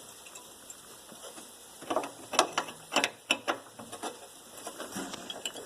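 Ratcheting wrench clicking in short, irregular runs, starting about two seconds in, as it works loose a rusty bolt on an air conditioner's sealed unit (compressor).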